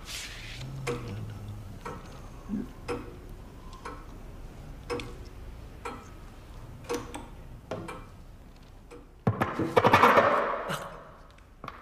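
A clock ticking about once a second in a quiet room. About nine seconds in comes a loud scratchy, crackling burst lasting about two seconds as a record player's stylus is set down on a vinyl record.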